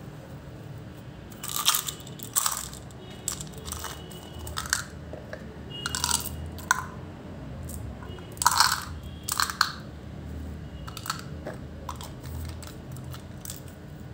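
Small candy-coated chocolates clicking and rattling against each other and a small plastic bottle as they are poured between the bottle and a hand. The clatter comes in several short bursts, loudest about two thirds of the way through.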